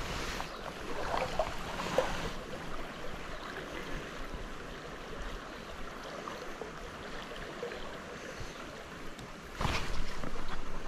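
Small stream flowing steadily past, with soft rustles of hands stripping fly line. Near the end comes a louder burst of rustling as the fly rod is lifted sharply to set the hook on a trout.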